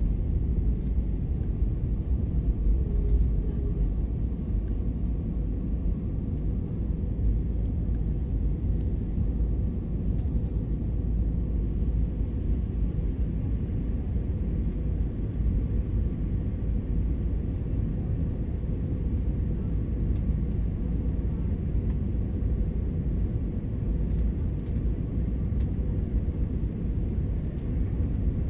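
Steady low cabin noise of an airliner in flight, the engines and rushing air heard from inside the cabin, with a faint steady hum on top.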